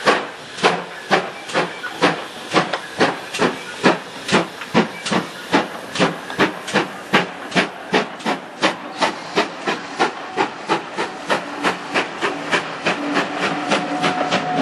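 GWR 56xx class 0-6-2 tank locomotive 6695 pulling away from a standstill, its exhaust chuffing in a sharp, even beat that quickens from about two to about four chuffs a second as it gathers speed.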